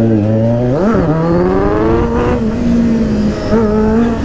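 Kawasaki Z900's inline-four engine and exhaust while riding, the revs rising sharply about a second in and then holding steady.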